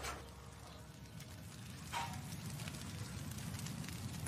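Wood fire on an open hearth crackling faintly under a cooking pot, with one sharper knock about two seconds in.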